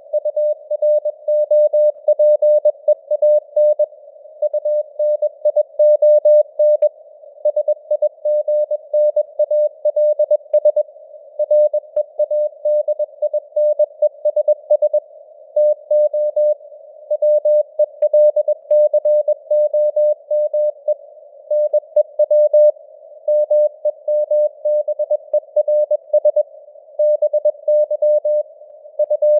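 Morse code (CW) at 21 words per minute: a single tone keyed on and off in dots and dashes, spelling out news headlines, over simulated radio band noise, with the signal strength fading slowly up and down (QSB).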